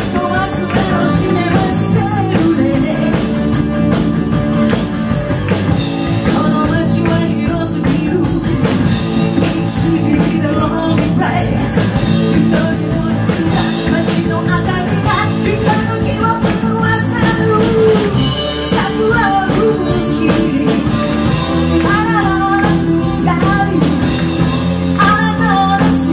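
Live rock band playing, with a woman singing lead over electric guitars, keyboard and a drum kit.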